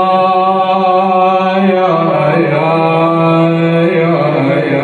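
A man chanting a Shia nai lament, drawing one word out into long held notes. The pitch shifts about two seconds in and again near the end.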